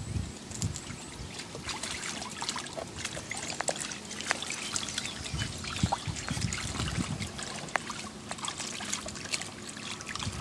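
Small dog wading in a shallow plastic kiddie pool, the water sloshing and splashing in a constant run of small splashes as it moves about and noses at the water.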